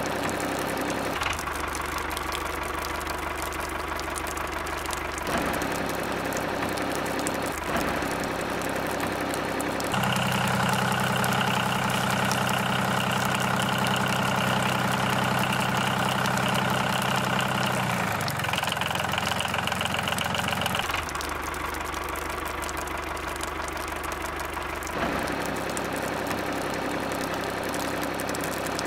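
A motor running steadily, like a small engine idling, its pitch and tone changing abruptly several times.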